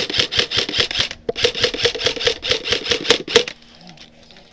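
Airsoft electric rifle firing two rapid bursts, about eight shots a second, with a short pause about a second in; the firing stops about three and a half seconds in.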